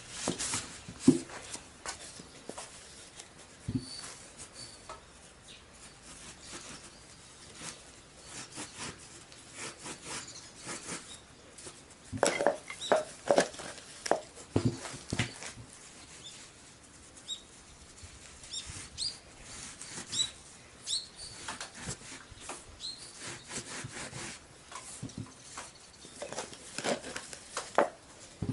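Intermittent rubbing, rustling and light knocks of hand work on a motorcycle front tyre fitted to a spoked wheel: a gloved hand dips into a bucket of liquid and rubs around the tyre bead. The handling noises come in louder clusters about halfway through and again near the end.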